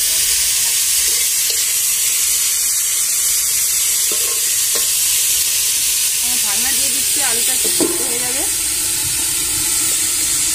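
Julienned potatoes frying in hot oil in an iron kadai, a steady sizzling hiss, stirred now and then with a spatula.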